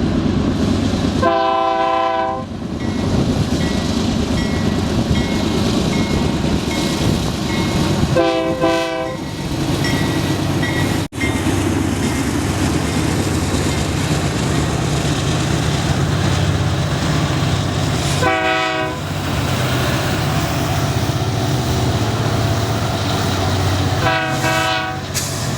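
Train horn sounding four separate chord-like blasts, the first the longest, over the continuous rumble and rail noise of a moving train.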